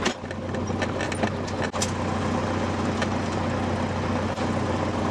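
Cessna 172's engine idling steadily, heard from inside the cabin. The cabin door is pulled shut and latched with a sharp clunk at the start, followed by a few small clicks.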